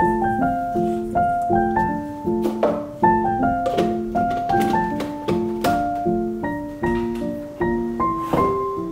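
Background solo piano music, notes struck at an easy, even pace and each left to fade, with a few soft clicks mixed in.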